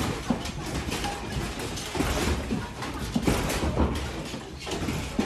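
A building shaking in a strong earthquake: a low rumble with the studio's overhead lights and fixtures rattling and knocking irregularly.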